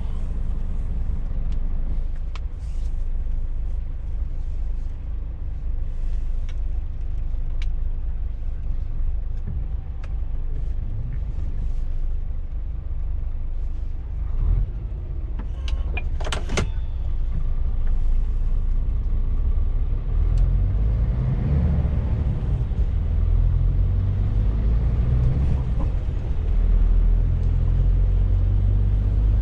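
Scania truck's diesel engine idling, heard inside the cab while the truck stands at a red light. There is a brief sharp noise about halfway through. From about two-thirds of the way in, the engine grows louder and deeper as the truck pulls away.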